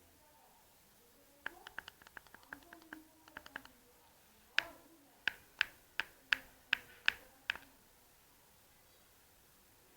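A small camera button clicked over and over: first a quick run of light clicks, then about eight sharper presses, two or three a second. These are presses on a GoPro Hero2's power switch, which the owner suspects is bad because the camera often won't turn on.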